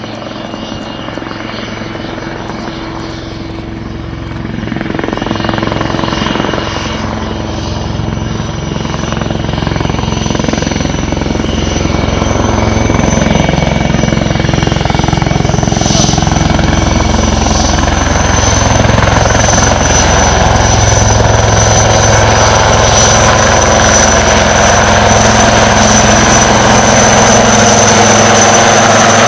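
HAL Dhruv twin-turboshaft army helicopter flying past, its high turbine whine and rotor noise growing steadily louder over the first half as it comes closer, then holding loud.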